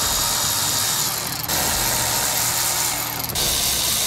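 Cordless electric ratchet running, backing out dash-trim fasteners: a steady motor whir in two runs with a short break about one and a half seconds in, stopping a little after three seconds.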